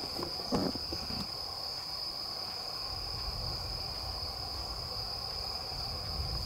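Crickets chirping in a steady chorus, heard as one continuous high trill, over a low rumble; a few soft knocks in the first second or so.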